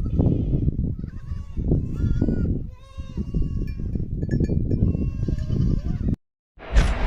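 Goats bleating repeatedly, several wavering calls overlapping, over a steady low rumble. About six seconds in the sound cuts out briefly, then a loud burst of noise begins near the end.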